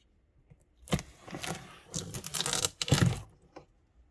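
A cardboard box and its packing being torn and pulled open by hand: rough tearing and rustling in several bursts over about two seconds, with sharp knocks at the start and near the end.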